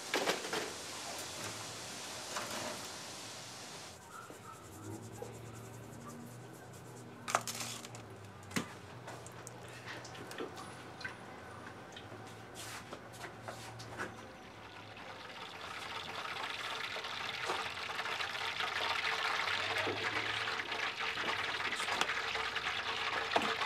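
Liquid poured into a cooking pot and running water, with a few light clinks and knocks; the steady rushing hiss grows louder through the second half.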